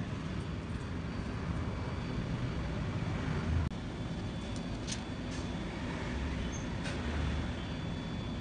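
Steady low background rumble, with a few faint clicks and a brief low thump around the middle.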